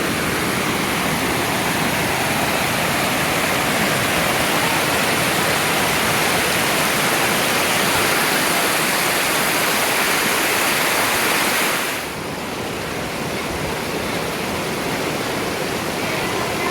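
Steady, loud rush of a waterfall's falling water. About twelve seconds in it drops a little in level and loses some of its hiss.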